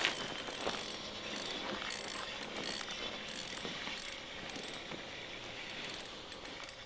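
Spinning reel being cranked steadily, its gears and handle ticking and whirring, as a hooked perch is reeled up through a hole in the ice.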